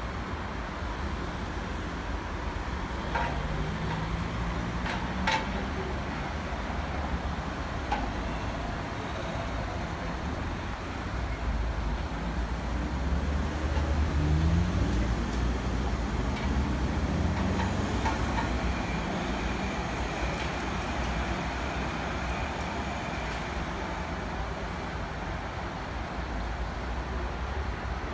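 Street traffic with a tow truck's engine running. An engine rises in revs twice, briefly about four seconds in and again from about fourteen seconds, which is the loudest stretch.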